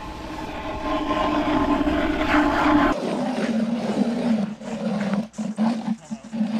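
Hand-cranked ice auger drilling through lake ice, its blades giving a steady, pitched grinding groan. About halfway through the pitch drops lower, and the groan comes in short, uneven pulses.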